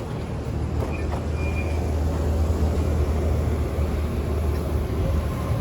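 Steady low drone of a moving vehicle.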